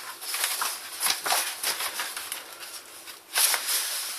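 Paper mailing envelope being torn open by hand: irregular crinkling and rustling of paper, with a louder rip a little over three seconds in.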